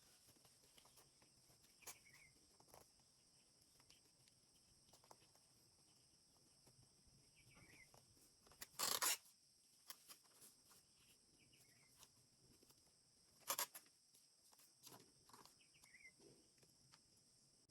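Near-silent background with a steady high hiss and a faint bird chirp every few seconds. Two short, louder noises stand out, one about halfway through and one some four seconds later.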